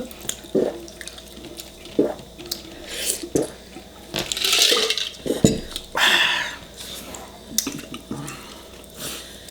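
Close-miked wet eating sounds: wet smacks and chewing on saucy food, with two longer slurps about four and six seconds in.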